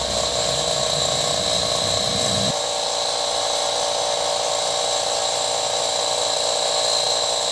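A construction power tool running steadily with a high whine over a rough grinding noise. A low hum underneath stops about two and a half seconds in.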